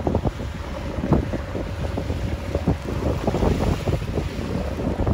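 Wind buffeting the microphone aboard a sailboat at sea, with an irregular gusty rumble over the wash of the water.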